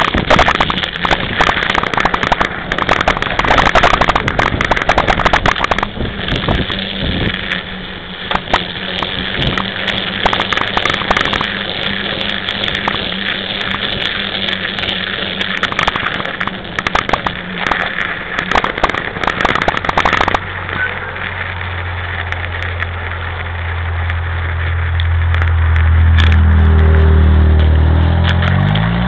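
A 26-inch mountain bike being ridden over snow and pavement: a dense, irregular crackle and rattle from the tyres and frame, picked up by a camera mounted on the bike. In the last several seconds a low engine hum swells and then bends in pitch, like a vehicle passing.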